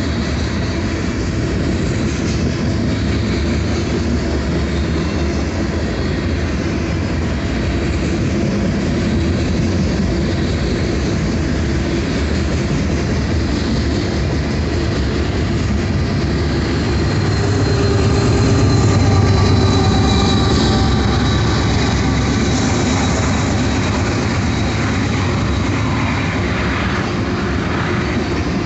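Freight cars of a CSX mixed freight train rolling past at speed: a continuous rumble and clatter of steel wheels on the rails, swelling a little about two-thirds of the way through.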